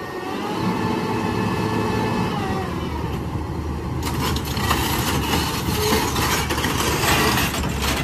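Diesel engine of a SANY SCC750E crawler crane running steadily, with a rougher clatter joining about halfway through.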